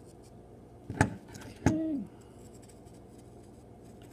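A small blade cutting the packing tape on a plastic coin tube: two sharp snaps, one about a second in and one just under two seconds in. The second snap is followed by a short low tone falling in pitch.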